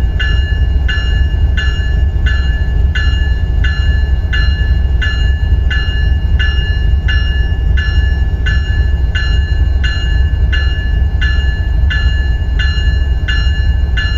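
Locomotive electronic bell (E-bell) ringing continuously with an even beat of about two dings a second, over a steady deep rumble.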